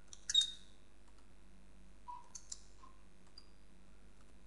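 A few faint computer keyboard clicks, as keys are struck to type a terminal command. The loudest comes just under half a second in, with weaker ones about two to three seconds in.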